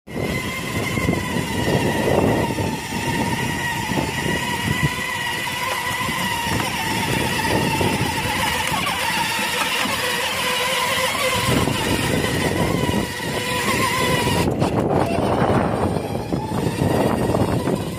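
Battery-powered ride-on toy quad bike driving along a concrete footpath: a steady electric motor and gearbox whine over the rumble of its hard plastic wheels on the pavement. The whine cuts out about three-quarters of the way through as the toy stops.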